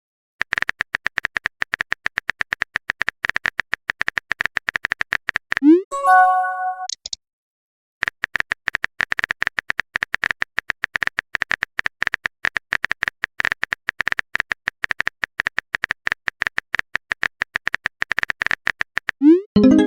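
Rapid, steady clicking of a phone keyboard typing sound effect, broken about six seconds in by a short rising chime of a few notes, a message-sent or message-received alert, with a second chime starting near the end.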